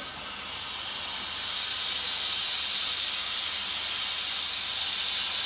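Compressed air hissing steadily from a blow gun on an air compressor hose, forced into a refrigerator's clogged defrost drain tube to blow out the blockage. It starts with a sharp burst, builds over the first couple of seconds, then holds steady; the air passes more freely through the drain.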